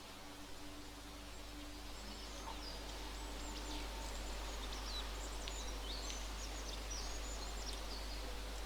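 Birds chirping and whistling over a steady outdoor hiss, with many short high calls starting about two and a half seconds in.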